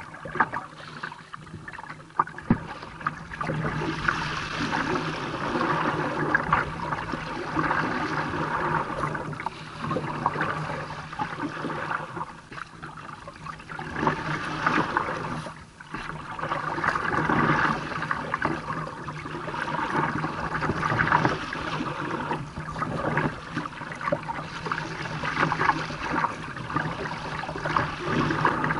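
Choppy river water splashing and slapping against the hull of a moving kayak, close to the bow, surging unevenly every second or two with a few sharp knocks near the start.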